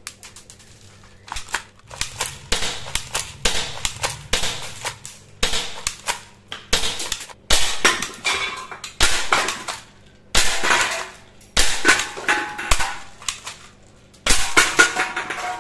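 Toy pump-action gel-bead shotgun firing at aluminium beer cans: bursts of sharp clacks, with the cans clattering and ringing as they are hit and knocked down. The bursts come in irregular clusters, starting about a second in.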